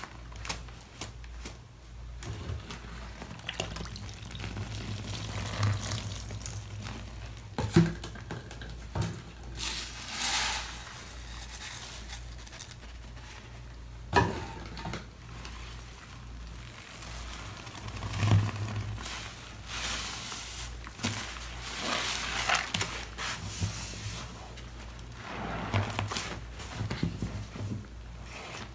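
Soapy sponges squeezed by gloved hands in thick foamy cleaning solution: wet squelching and crackling foam that comes in irregular surges, with a few sharper knocks.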